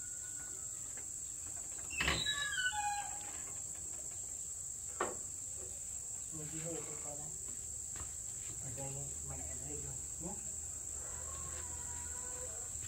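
Steady high-pitched drone of insects such as crickets, with a brief louder falling sound about two seconds in.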